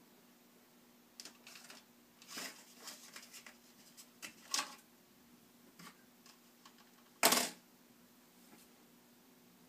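Small clicks, taps and rustles of hands lifting an old processor out of a desktop motherboard's CPU socket and setting it aside. A louder, brief handling noise comes about seven seconds in.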